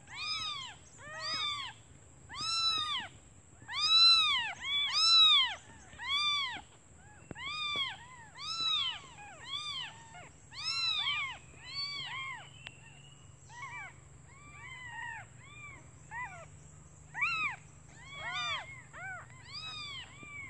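Newborn kittens meowing in a steady run of short, high cries, each rising and then falling in pitch, about one or two a second and sometimes overlapping. They are hungry kittens crying for their mother.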